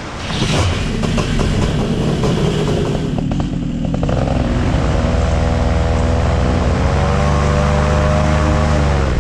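The engine of a home-made inflatable speed boat running hard as the boat speeds along. A rushing noise fills the first few seconds; after that the engine holds a steady note, which climbs a little in pitch about seven seconds in.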